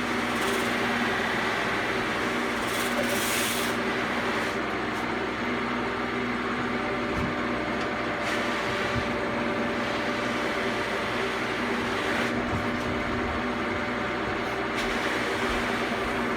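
Buffing machine running, its spinning wheel polishing the lacquered body of a 1968 Fender Telecaster Bass: a steady motor hum under a rubbing hiss that swells every few seconds as the body is pressed against the wheel.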